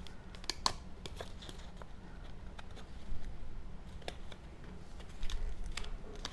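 Cut cardstock pieces being handled while gluing: scattered light clicks, taps and paper rustles over a low steady hum.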